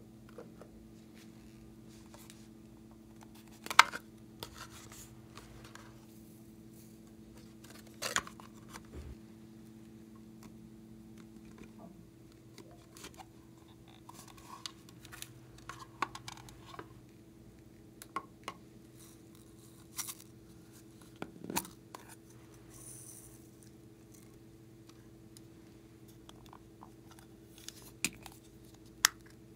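Scattered clicks and taps of small plastic containers being opened, handled and tipped, and of small add-in pieces dropping onto trays of slime, over a steady low hum.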